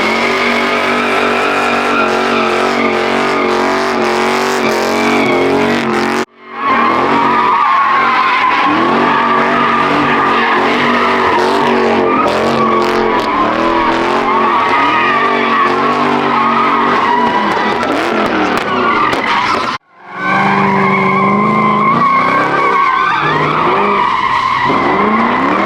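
A car doing a burnout: tyres squealing continuously over a high-revving engine whose pitch rises and falls. The sound cuts out abruptly twice, about six seconds in and near twenty seconds.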